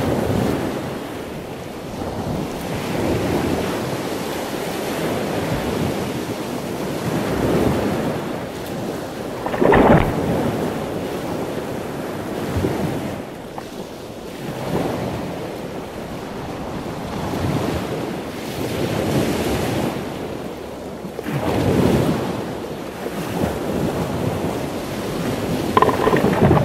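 Ocean waves breaking and rushing in surf close to the water's surface, with wind buffeting the microphone. The level swells and ebbs with the waves, with the loudest surge of whitewater about ten seconds in and another near the end as spray washes over the camera.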